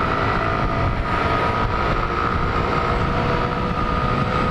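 Step-through motorbike engine running at a steady cruising speed, heard as an even whine that holds one pitch, over the low rumble of wind on the microphone while riding.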